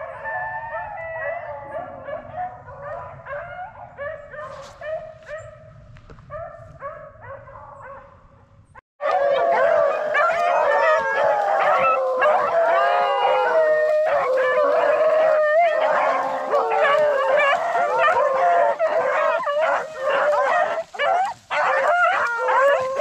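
A pack of hunting dogs baying while running a rabbit, several voices overlapping. The baying is fainter for the first nine seconds or so, then, after a sudden break, comes in much louder and denser, as if close by.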